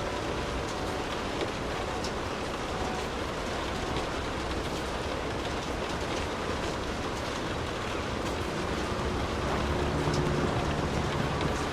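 Steady rain falling, with a low rumble underneath that grows a little louder and picks up a low hum near the end.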